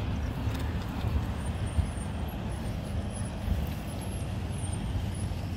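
Steady low rumble of road traffic, with no speech.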